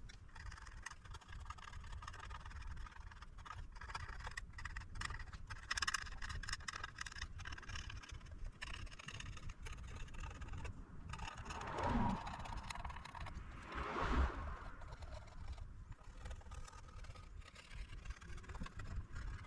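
Insulating coating being scraped off a circuit board with a small hand tool, so that solder will take. A run of short, dry scratches, with two brief louder sounds about twelve and fourteen seconds in.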